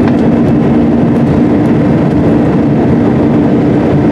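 Cabin noise of an Allegiant Air Airbus A320-family jet climbing out after takeoff, heard from a seat beside the engine. The engines at climb power and the rushing airflow make a loud, even noise with a steady low hum.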